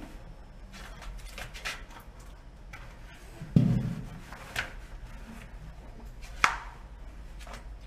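Handling noises in a small tiled bathroom stall: soft rustling of toilet paper, a dull thump about three and a half seconds in, and a sharp click near six and a half seconds.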